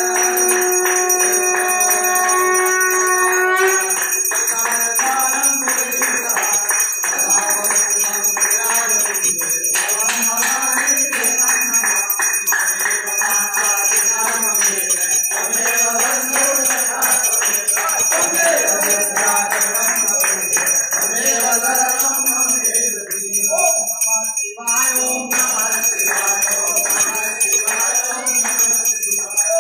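Temple aarti bells ringing continuously, with a crowd singing the aarti hymn and clapping along in a quick steady rhythm. A long held note sounds for the first few seconds.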